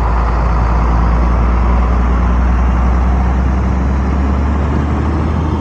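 International vacuum truck's diesel engine running steadily at idle, a deep even hum.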